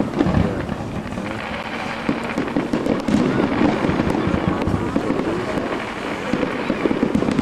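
Fireworks display going off: a rapid, continuous run of bangs and crackles from bursting shells and comets.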